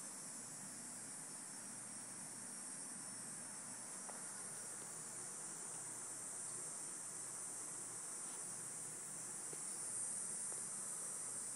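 Steady high-pitched insect chorus, faint and unbroken.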